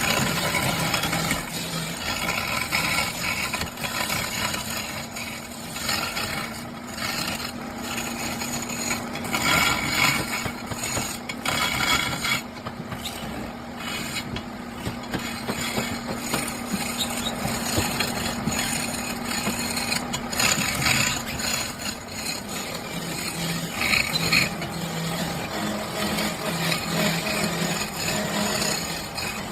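Wood lathe running with a steady motor hum while a turning tool scrapes and cuts the spinning wood, the scraping swelling and easing off irregularly.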